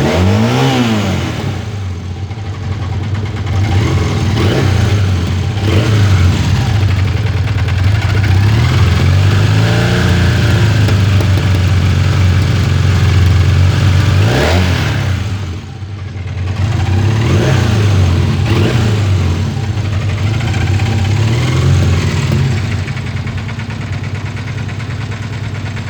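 Honda CB 450 DX parallel-twin engine through a Roncar aftermarket exhaust, idling and blipped up in about seven short revs. The biggest rev comes about halfway through, and it falls back to idle after each.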